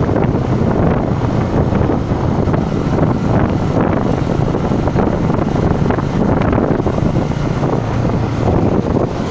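Loud, steady wind rush on the microphone of a moving Yamaha R15 V3 motorcycle, with the bike's single-cylinder engine running underneath.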